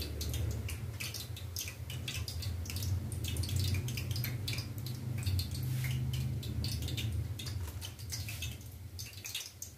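Raw chicken pieces pressed and turned by hand in a heap of cornstarch: many small irregular crunching clicks of the starch, over a steady low hum.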